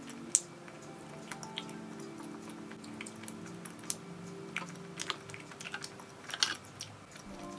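Close-miked eating: soft bread dipped in whipped cream being bitten and chewed, with scattered wet mouth clicks and smacks, the sharpest about a third of a second in and a cluster near the end. Soft background music plays underneath.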